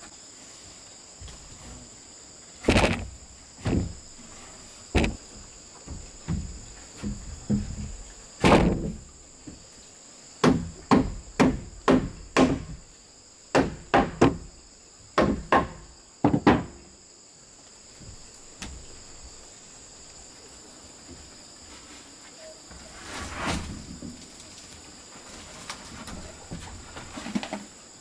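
Irregular wooden knocks and thumps from work on a wooden floor, with a quick run of them in the middle, over a steady high insect chirr.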